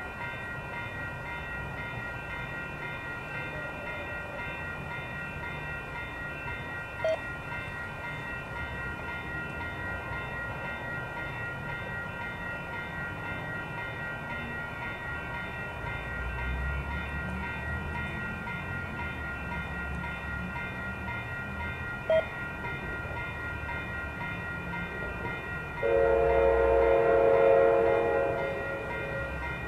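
Faint steady background with a low rumble, then a train horn sounds one long blast of several notes together near the end, lasting about two and a half seconds. Two short, sharp blips come earlier.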